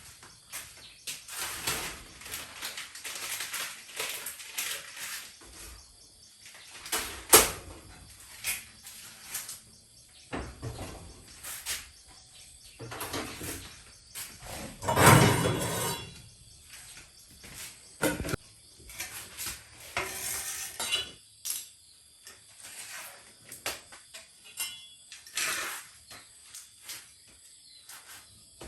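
Hard objects being handled: a series of irregular clinks, knocks and clatters, with a longer, louder scraping clatter about halfway through.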